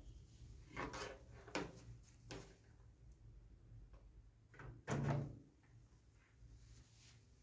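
Handling noise from an electrolysis setup: a few light clicks and knocks, then a louder thump about five seconds in, as the wires and clips on the plastic tub are adjusted by hand.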